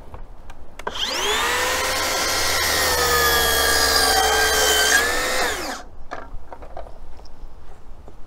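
Makita DLS714NZ cordless brushless slide miter saw with a 190 mm blade, spinning up about a second in and cutting through a wooden board at a 45-degree angle. The motor whine holds steady through the cut, then winds down quickly and stops near the six-second mark, followed by a few light knocks.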